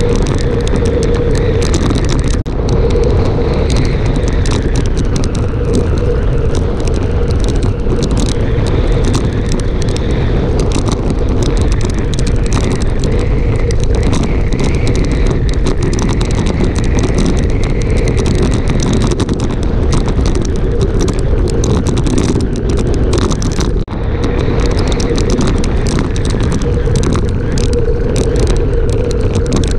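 Wind rushing and buffeting over the camera's microphone on a fast downhill road descent: a loud, steady, low rumbling roar with no engine note.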